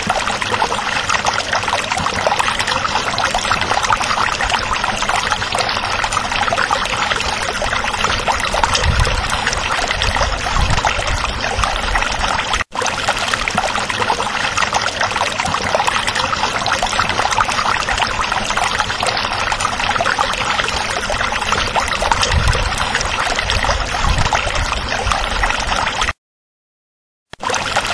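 Running water, a steady splashing rush. It cuts out for an instant about halfway through and drops to silence for about a second near the end.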